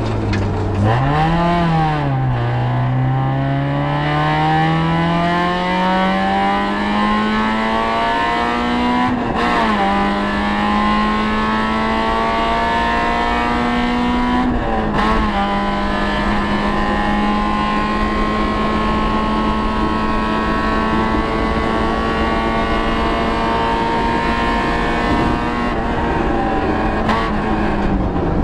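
Citroën Saxo VTS rally car's four-cylinder engine heard from inside the cabin, driven hard on a rally stage: it picks up out of a slow corner near the start, climbs steadily through the revs, shifts up about nine seconds in and again about fifteen seconds in, then runs at steady high revs flat out, easing briefly near the end.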